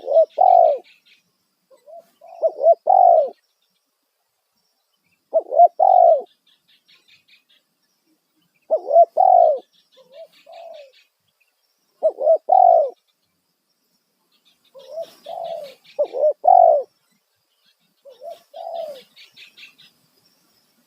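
Spotted dove (tekukur) cooing: a loud, short phrase of coos repeated about every three seconds, seven times. Faint high chirps of small birds sound between the phrases.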